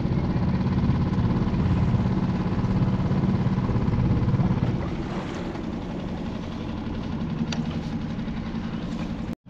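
Small boat's outboard motor running steadily at low speed. It eases off a little about halfway through.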